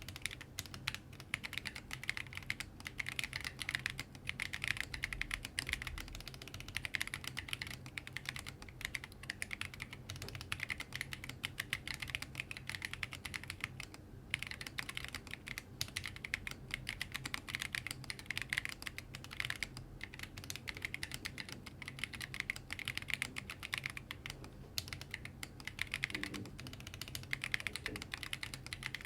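Typing on a Lily58 split mechanical keyboard with tactile Neapolitan switches and high-profile MT3 keycaps: a steady, fast run of key clicks and thocks.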